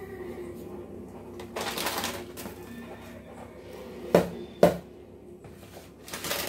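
Pot of payasam, milk with sago and vermicelli, boiling up into a froth on a gas stove. Two sharp knocks, a half second apart, come about four seconds in.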